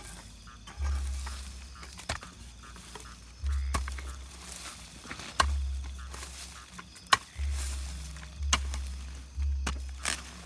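Footsteps through dry garden vegetation at night, with crackling and snapping of dry leaves and twigs. Dull low thuds recur every second or two, like footfalls jolting a handheld microphone.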